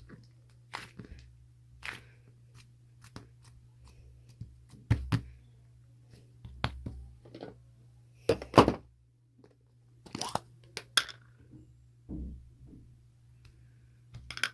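Irregular clicks, knocks and rustles of objects being handled, with a few louder knocks in the middle and a faint steady low hum underneath.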